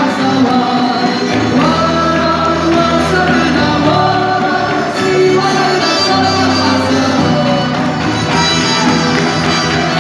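Live music: a woman singing long, bending notes into a microphone over a band's accompaniment, amplified through the stage speakers.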